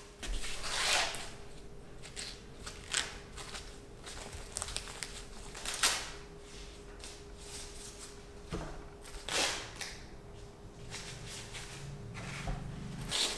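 Fresh ears of sweet corn being husked by hand: green husks and silk pulled and torn away in a series of separate crisp rustling tears, a second or more apart.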